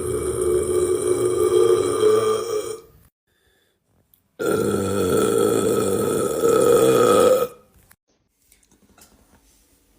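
Two long, loud belches from a man. The first dies away about three seconds in; after a short gap the second runs about three seconds and stops sharply.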